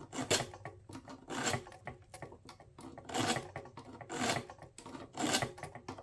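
Scissor blade being drawn through a Sharpal multi-tool sharpener, metal scraping in about five strokes a second or so apart. The blade is going through the wrong part of the sharpener rather than the ceramic rod meant for scissors.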